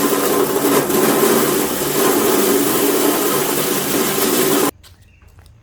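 A motorised machine running loudly and steadily, a low hum under a dense noise, then cutting off abruptly about four and a half seconds in.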